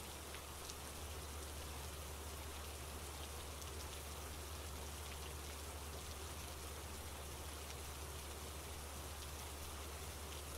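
Steady rain falling, an even patter of drops, with a low steady rumble underneath that swells slightly about a second in.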